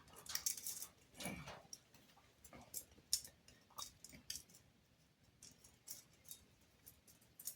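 Chainsaw chain being handled and fitted onto the guide bar, its metal links and cutters giving scattered light clicks and rattles.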